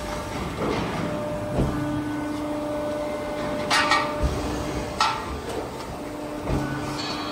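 Workshop machinery with a steady hum, broken by a few sharp metallic knocks. The loudest knocks come as a pair just under four seconds in, with single ones about one and a half seconds in, at five seconds and near the end.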